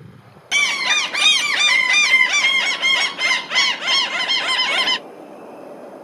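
Fieldfare giving a dense, squeaky chattering song of quick rising-and-falling notes, many overlapping. It starts abruptly about half a second in and cuts off abruptly about five seconds in.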